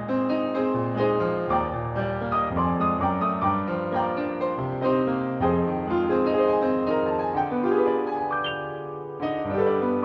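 Solo piano played live, a steady stream of melody and chords, heard through a video call. About eight and a half seconds in it eases to a quieter held chord, then picks up again.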